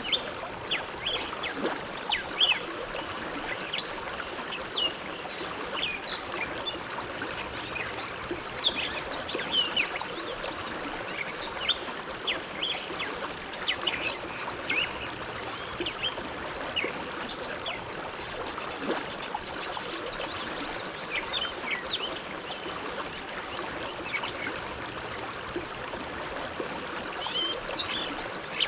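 Bow River flowing: a steady rush of moving water with many quick, high gurgles and splashes scattered through it.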